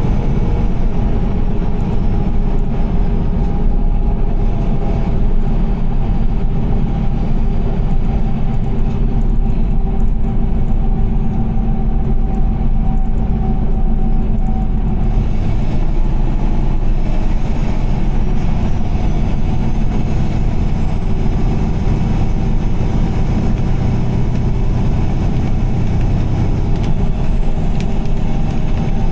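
Steady road and engine noise of a car driving on a wet highway in rain: a constant low rumble with some hiss that grows about halfway through.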